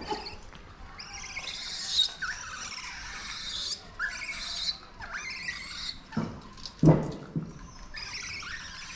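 Bursts of high-pitched chirping and squealing animal calls, some with short falling notes. About two-thirds of the way through come three dull thumps, the middle one the loudest.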